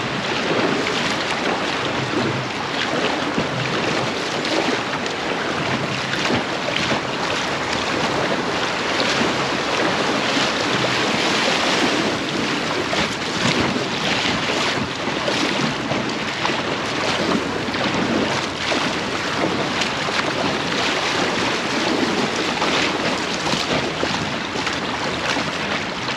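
Steady rush of churned, fast-flowing river water around a packraft running a stretch of rough water.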